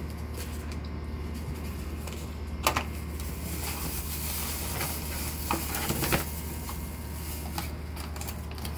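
Plastic packaging and cardboard rustling and crinkling as items are handled and lifted out of a shipping box, with a few sharp clicks and knocks, the loudest about three seconds in and two more near the middle.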